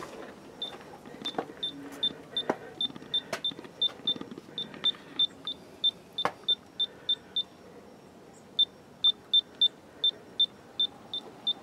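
A high, short chirp repeating about three times a second, breaking off for about a second past the middle, over a few sharp clicks from a G-scale model passenger train running by.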